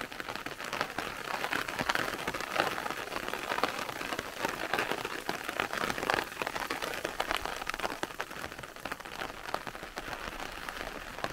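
Light rain falling steadily, a constant patter of many small drops.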